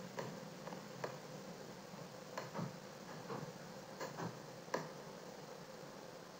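Faint computer mouse clicks: about eight short, sharp clicks at irregular intervals, some in quick pairs, over a low steady hiss.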